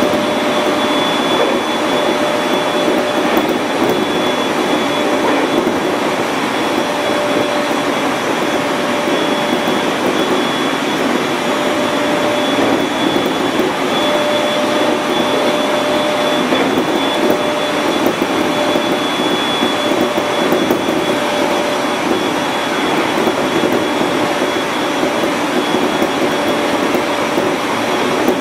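701 series electric train running along the line: a steady rush of wheel-and-rail noise, with a faint high whine held throughout and a lower tone that keeps dropping out and returning.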